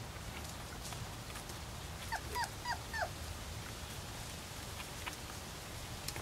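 A four-week-old pointer puppy giving four short, high whimpers in quick succession about two seconds in, each dropping in pitch, over a steady low rumble.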